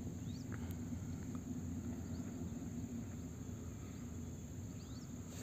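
Quiet, steady low rumble of a ropeway cabin gliding along its cable, with a steady high chirring of insects from the forest below and a few faint short chirps.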